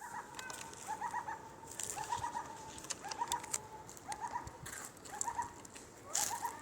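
A bird calling a short, stuttering phrase of low notes, repeated about once a second, with scattered sharp ticks between them.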